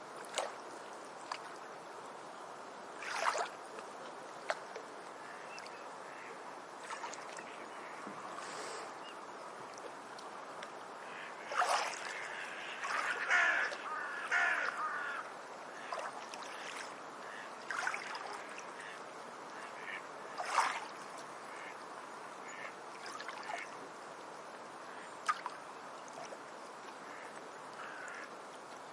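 Beach ambience: a steady wash of background noise with scattered bird calls, busiest for a few seconds about twelve seconds in.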